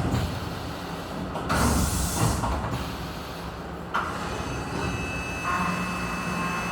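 Vertical machining center at work, its BBT30 spindle running steadily. A burst of hissing comes in about a second and a half in and lasts roughly a second. Steady pitched tones join near the end.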